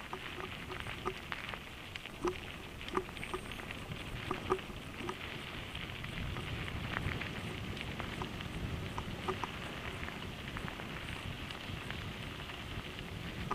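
Mountain bike rolling downhill on a loose gravel road: a steady crunch of tyres on stones, with scattered sharp clicks and rattles from the bike.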